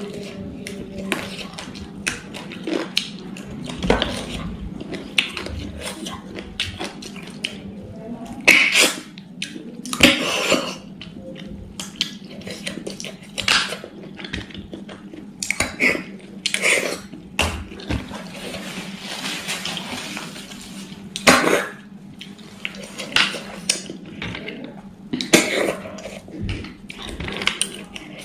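Close-miked eating of snail curry with the fingers: wet sucking and slurping of snails from their shells, chewing, and small clicks of shells and fingers on a steel plate. Several longer slurps stand out, with one long sucking hiss in the second half.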